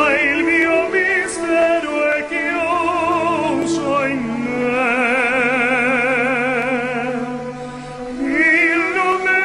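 Male singer singing in operatic style with wide vibrato, holding one long note in the middle, over instrumental accompaniment.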